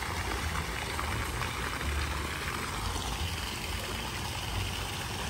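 Steady rushing of water in a swimming pool, with an uneven low rumble underneath.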